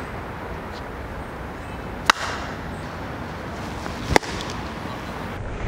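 Two sharp slaps of folded paper ddakji tiles thrown down hard onto stone paving, about two seconds apart, each throw trying to flip the other player's tile over.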